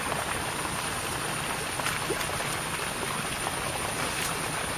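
Night-time outdoor ambience with frogs calling over an even hiss and a high steady whine, with a few faint clicks.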